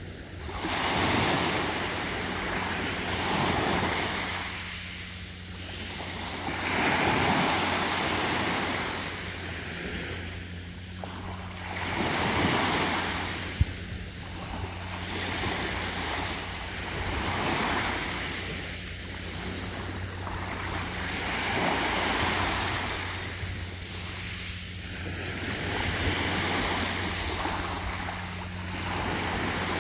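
Small sea waves breaking and washing up a sandy beach, the surf swelling and fading every two to three seconds.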